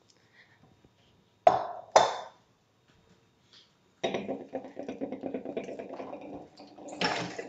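Two sharp, ringing clinks of dishware about half a second apart, then about three seconds of a utensil scraping and clattering against cookware while food is served.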